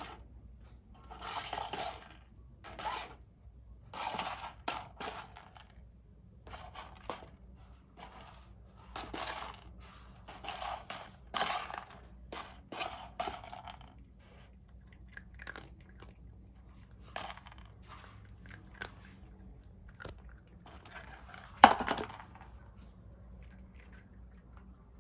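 A cat working at a food puzzle feeder: kibble rattling and scraping inside it in short irregular bursts, thinning out later, with one sharper knock near the end.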